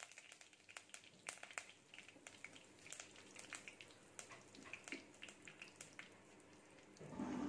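Faint, irregular crackling of curry leaves and dried red chillies frying in hot sesame oil in a clay pot: scattered sharp pops, a few each second.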